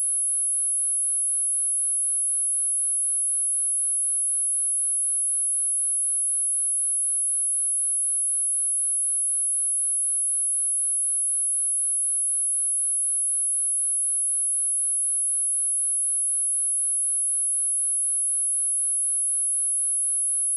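A steady, high-pitched 10648 Hz sine-wave test tone, one pure note held without change.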